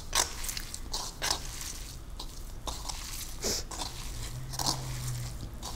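Hands squeezing and kneading crumbled fresh tofu in a wooden bowl: irregular soft squishing and crunching sounds. A low steady hum comes in about four seconds in.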